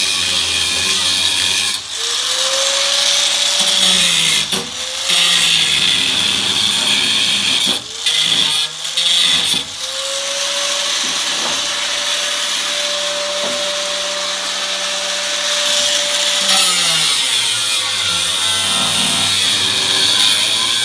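Handheld power cutting tool run in several bursts, its motor whine winding up, holding and winding down each time, with a harsh grinding hiss as it cuts into car-body sheet metal. The longest run comes midway.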